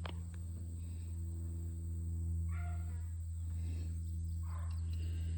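Young rabbit-hunting hounds baying while running a track: about three short calls in the second half, a second or so apart, over a steady low hum.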